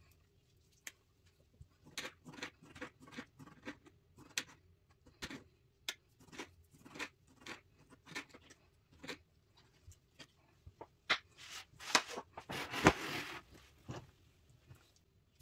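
Knife chopping peeled orange segments on a glass cutting board: a string of sharp taps, roughly two a second, then a louder scraping clatter with a strong knock near the end.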